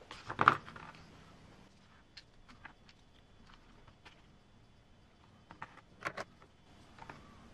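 Plastic Traxxas TRX-4 transmission housing and small ball bearings handled and set down on a paper instruction manual: scattered faint, light clicks and taps, the loudest a quick pair about six seconds in.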